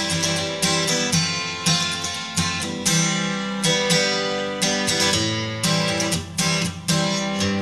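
Background music of strummed acoustic guitar chords in a steady rhythm.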